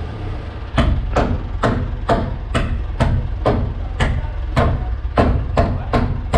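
Nails being driven into wooden framing: a regular run of sharp strikes, about two a second, starting about a second in.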